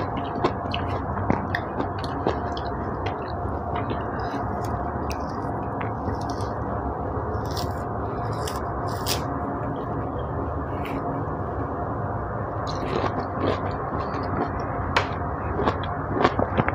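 A liuting orange being peeled by hand, the rind tearing with wet squishy clicks, mixed with mouth sounds of chewing the juicy segments, over a steady background hiss.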